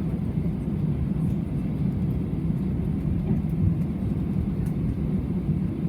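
Steady low rumble inside the cabin of an Airbus A320 taxiing after landing, with the engines at idle.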